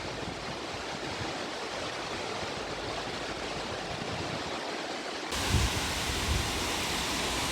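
Steady rush of falling water from a large waterfall. About five seconds in it cuts abruptly to a louder, brighter rush with low bumps.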